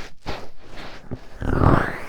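Fingertip rubbing and scratching in a microphone's ear: crackly scratching strokes, then a louder, muffled rubbing about one and a half seconds in.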